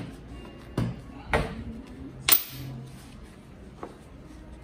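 Metal driveshaft universal joint parts knocking against each other and the aluminium final drive housing: three sharp knocks about a second apart, the last with a short metallic clink, then a lighter tick.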